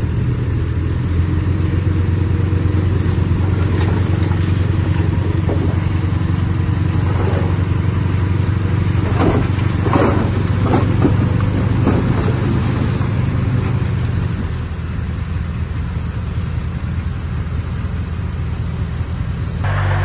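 Diesel engine of earthmoving machinery running steadily under work, with a few short squeaks and knocks in the middle; the engine sound eases somewhat about two-thirds of the way through.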